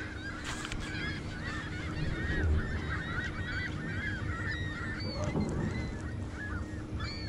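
A flock of birds calling continuously, many short overlapping calls in a steady chorus, over a low steady rumble.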